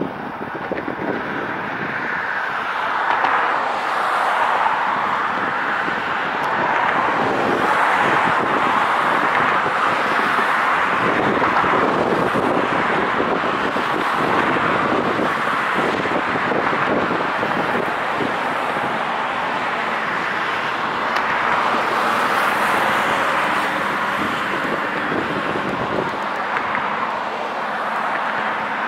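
Steady rushing noise of road traffic and vehicles, swelling and fading every few seconds.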